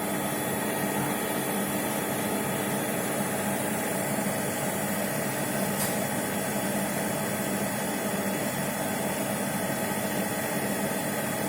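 Bosch Serie 6 Vario Perfect front-loading washing machine running in its wash cycle: a steady mechanical hum with a few held tones over a soft hiss.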